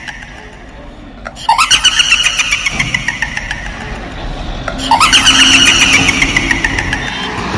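A high, pulsing wail that starts with a quick upward sweep and fades over about three seconds, sounding twice, over the low engine of a goods truck driving past.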